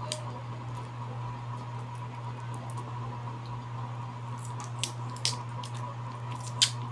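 Steady low room hum with a few small sharp clicks from a glass perfume spray bottle and its cap being handled, most of them in the last few seconds.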